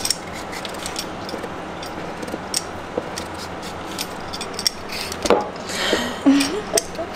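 Vegetable peeler scraping the skin off raw potatoes in short, irregular strokes, then off a carrot near the end.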